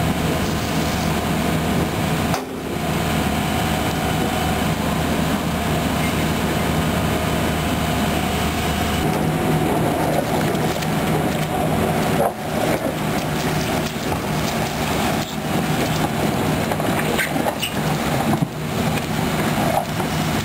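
Sany SR150C hydraulic rotary piling drill rig running steadily at work, its engine and hydraulics making a continuous mechanical noise; the low hum in it drops away about nine seconds in.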